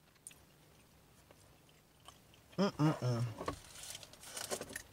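Very quiet for about two and a half seconds, then a short voiced murmur from a man with his mouth full. Near the end comes about a second of crackling rustle from the aluminium foil on his plate being handled.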